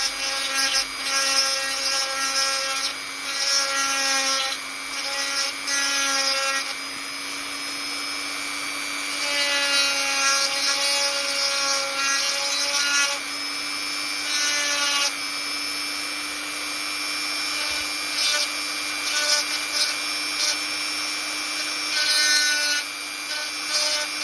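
Small electric drill running steadily while its bit grinds in spells against a polystyrene doll torso, widening a drilled hole for a joint repair piece.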